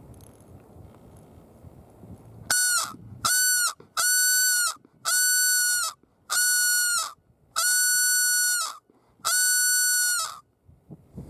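A hunter's predator call blown in seven high, squalling distress cries: two short ones, then five of about a second each. It is used to call in a black bear.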